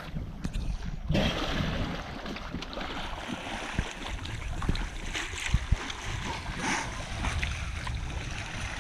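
Wind buffeting the microphone over the rush and slosh of sea water along the hull of a Contessa 26 sailing yacht under way. The water hiss grows louder about a second in.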